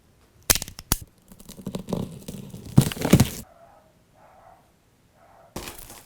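Cardboard appliance box being handled and opened: two sharp cracks, then tearing and crinkling, a quiet pause, and more rustling near the end.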